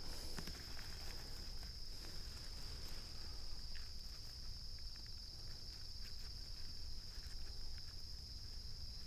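Gloved hand working a matsutake mushroom loose from the forest floor: soft crackling and rustling of dry pine needles and earth around its stem. A steady high-pitched insect chirring runs underneath.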